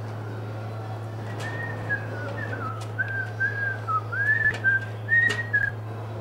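A person whistling a short wavering tune in quick connected notes, starting about a second in. A steady low hum runs underneath, with a few sharp clicks.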